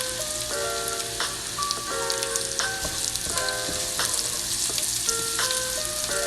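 Garlic and onion frying in hot oil in a pan, a steady sizzling hiss.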